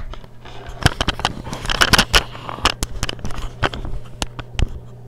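Irregular sharp clicks and knocks with some scraping, over a steady low hum.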